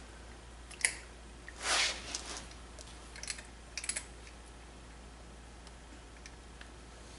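Light clicks and small clatters of a hand vacuum brake-bleeding pump and wrench at a brake caliper's bleeder screw, with one short hiss about two seconds in, as the tight bleeder screw is worked loose to let the fluid draw through.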